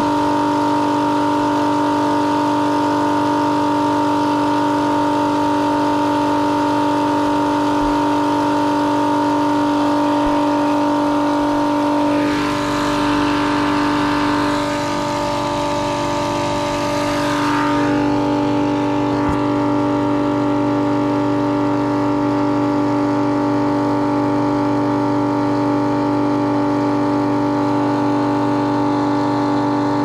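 Milwaukee transfer pump running steadily with a motor whine, pumping condensate water out of an HVAC drain pan into a sewer trap. About halfway through, a hissing rush rises over it for several seconds and the whine's pitch shifts slightly before settling back.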